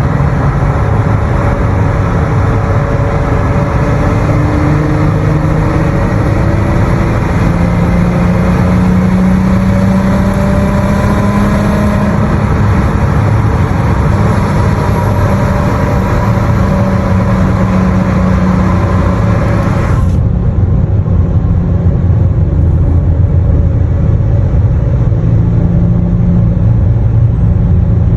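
Car engine running with a leaking exhaust, heard in a tunnel, its pitch rising and falling as it pulls. About twenty seconds in the higher part of the sound cuts off abruptly, leaving a duller, lower drone.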